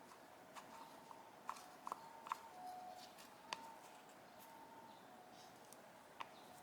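Faint scattered clicks and light taps from small tools on a Yamaha V-Max carburetor as it is taken apart, over a faint steady hum. The clicks are quickest about a second and a half to two and a half seconds in, with another about three and a half seconds in.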